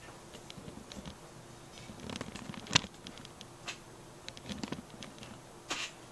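Close handling noise: scattered light clicks and brief rustles, with one sharp click a little under three seconds in.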